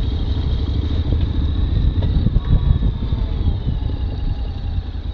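Honda X-ADV's parallel-twin engine running at low speed as the bike rolls along a slippery trail, under a heavy, steady low rumble.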